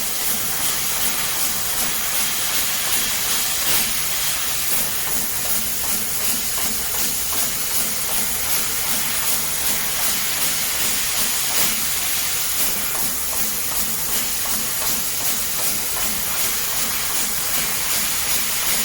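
12 kW fiber laser cutting sheet-metal discs: a steady, loud hiss of assist gas blowing through the cutting nozzle, with faint high whines from the machine.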